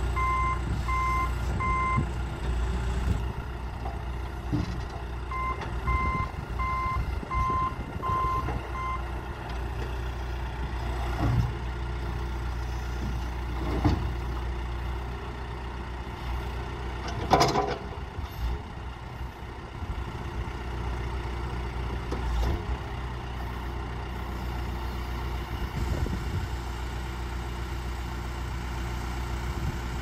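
John Deere 310C backhoe with its diesel engine idling steadily, its reverse alarm beeping in two short runs, about four beeps and then five, in the first nine seconds. One loud sharp knock about halfway through, with a few softer knocks before it.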